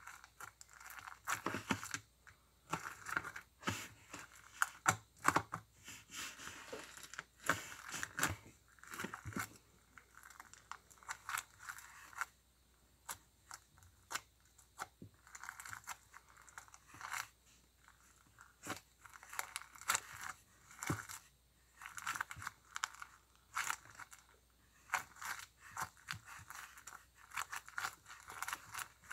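Crunchy slime being squeezed and pressed by hand: dense crackling and popping in clusters, with a few short lulls.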